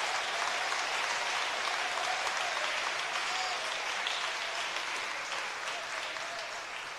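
Congregation applauding, the clapping slowly dying away.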